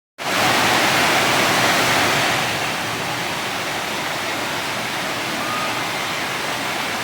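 Steady heavy rain, a dense even hiss that cuts in abruptly at the start and eases slightly after about two seconds.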